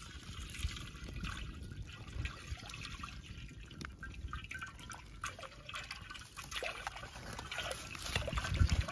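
Cooking oil poured in a thin, steady stream into a large black iron kadai, trickling and splashing into the pool gathering in its bottom. A low rumble underneath swells to its loudest near the end.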